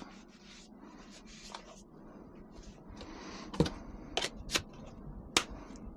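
Light rubbing and rustling as paint is wiped off a paintball marker, then four sharp clicks and taps of parts being handled in the second half.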